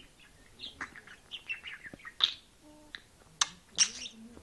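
Budgerigar chattering and warbling: quick chirps and clicks, with a few sharp, loud chirps about two, three and a half and four seconds in.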